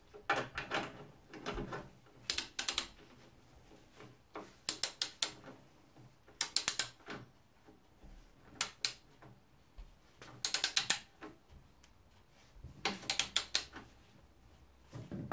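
Socket ratchet wrench clicking in short bursts every second or two, each burst the ratchet's return stroke, as a bolt holding a brake flexi hose is tightened down.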